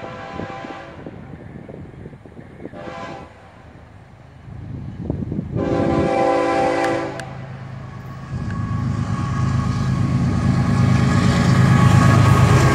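A Nathan K5HL air horn on a GE ES44C4 diesel locomotive sounds three blasts: the end of a long one, a short one about three seconds in, and a louder long one about six seconds in. This fits the long-long-short-long grade-crossing signal. From about eight seconds in, the locomotive's engine grows loud and low as it passes close by.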